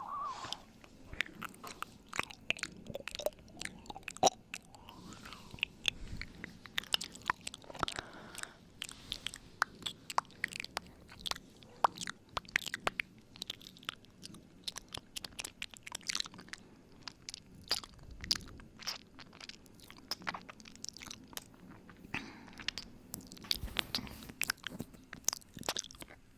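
ASMR 'ear eating' mouth sounds made right up against the microphone: dense runs of sharp, irregular mouth clicks, smacks and nibbling noises, many a second.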